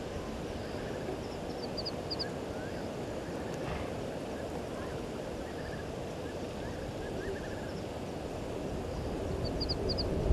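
Birds calling in short, quick chirping phrases over a steady low outdoor rumble, which swells slowly near the end.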